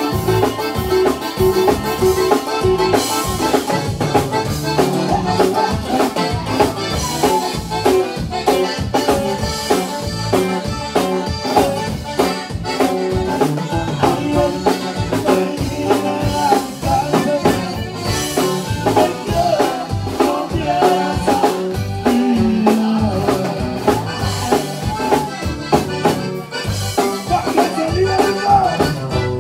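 Conjunto tejano band playing live: a button accordion carries a busy melody over bass and a drum kit.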